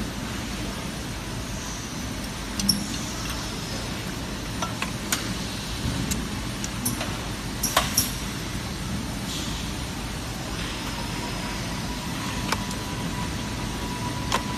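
Steady hum of factory machinery with scattered sharp clicks and knocks as plastic and metal car rearview mirror parts are handled and fitted in an assembly fixture, the loudest pair about eight seconds in. A faint steady tone joins about ten seconds in.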